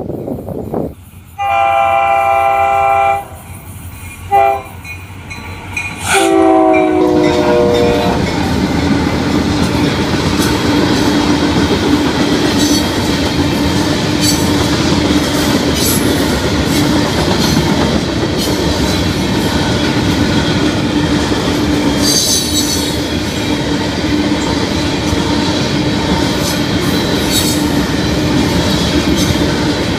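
Florida East Coast Railway freight locomotive's air horn: a long blast, a short blast, then a long blast that drops in pitch as the lead engine goes by. Then the freight cars roll past with a steady rumble, a steady tone and the clack of wheels over rail joints.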